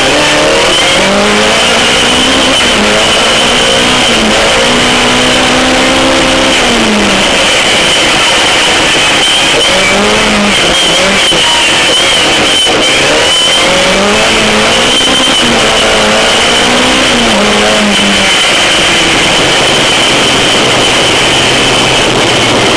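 Dirt-track race car engine heard from inside the car, repeatedly revving up and easing off through the corners and gear changes over a loud, steady rushing noise. A steady high whine runs underneath.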